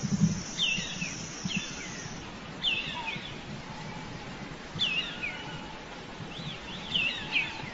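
A bird chirping: short, quick calls repeated irregularly, several in close succession near the end, over a steady background hiss.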